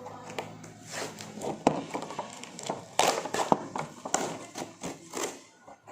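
Toy packaging being handled and opened: irregular plastic and cardboard rustles with sharp clicks and knocks.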